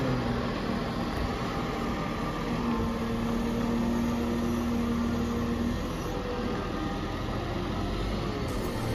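Volvo L90H wheel loader's diesel engine running steadily as the machine pushes snow with a plow blade, with a steady whine rising out of the engine noise for about three seconds midway.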